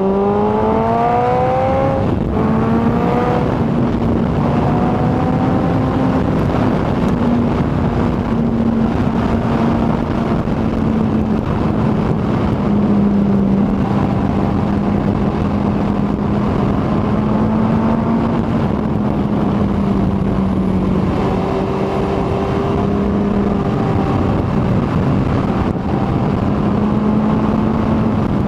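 Kawasaki ZX-14R's inline-four engine pulling with rising pitch, then upshifting about two seconds in. After the shift it runs at a nearly steady pitch at cruising speed, under a constant rush of wind noise.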